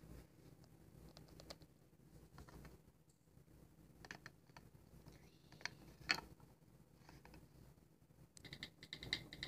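Faint, scattered clicks and taps of a small plastic toy figure being handled and set down on a plastic toy dresser, with a quick run of clicks near the end.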